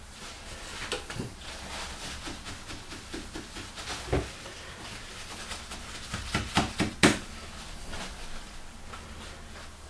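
Irregular knocks, taps and rustles of hands and kitchen utensils handling the milk-and-vinegar curds, with a quick run of knocks ending in one sharp, loud click about seven seconds in.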